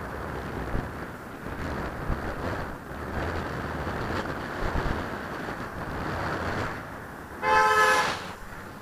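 Wind rushing over a helmet camera's microphone with traffic around, then a single car horn blast of under a second near the end, two pitches sounding together.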